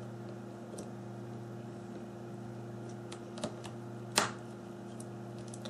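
A few small sharp clicks and taps of phone parts being handled as ribbon connectors are clipped onto the motherboard, the loudest about four seconds in, over a steady low hum.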